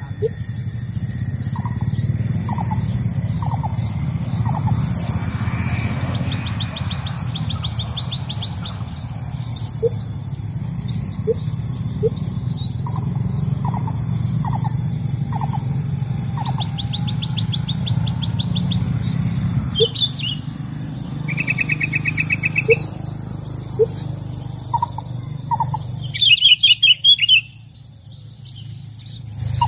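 Small songbirds, including sooty-headed bulbuls, calling: scattered short chirps and rapid trills, the loudest calls about 26 seconds in. A steady high insect buzz runs behind them.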